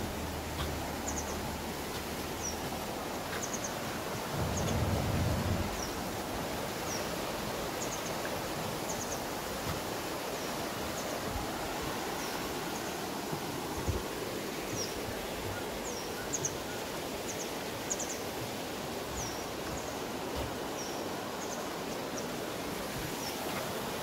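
Mountain stream rushing over a rocky bed, a steady hiss of water, with a small bird giving short high chirps about once a second. A brief low rumble about five seconds in.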